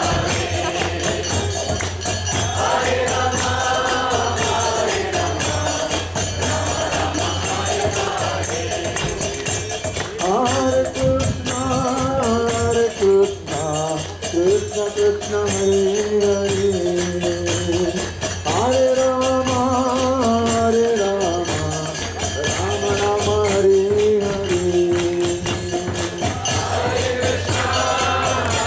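Devotional kirtan: a group chanting a mantra melody in repeated phrases that alternate, over a steady shimmering rhythm of small hand cymbals (karatalas).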